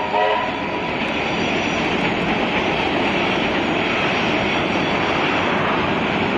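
A steam locomotive's whistle cuts off just after the start, then the locomotive keeps working steadily past with its train: a dense, steady noise of exhaust and running gear.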